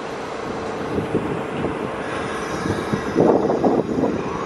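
New York City subway train sounds: a steady hum and rumble with a faint high squeal, and a louder burst of rumbling about three seconds in.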